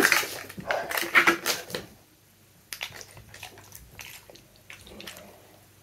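Foil toy-pack wrapper crinkling and rustling as it is handled, in short scattered crackles: louder in the first two seconds, then a brief gap, then fainter ones.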